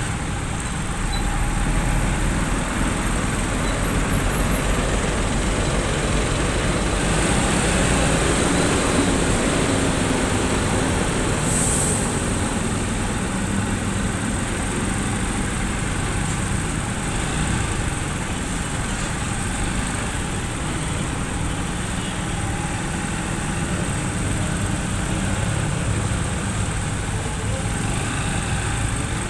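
Motorcycle engine running at low speed in slow, stop-and-go traffic, under a steady wash of surrounding traffic and road noise.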